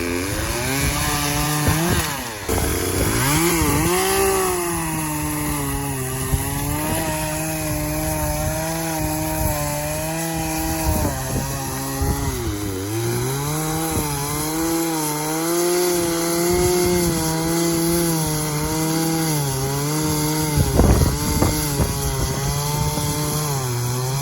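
Chainsaw running at cutting speed, bucking dry, long-dead elm into rounds. The engine pitch sags and recovers several times as the chain loads up in the wood and frees again, dipping lowest about halfway through. A few knocks sound near the end.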